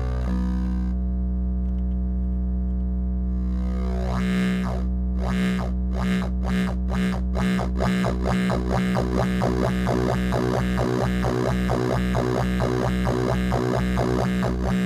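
Modular synth drone from a Dronebank oscillator shaped by a Tidal Wave wave-folder module: a low, buzzy sustained tone. Its brightness drops about a second in, then from about four seconds it pulses bright and dark in a rhythm that quickens to about four pulses a second as the module's internal LFO sweeps the wave shaping.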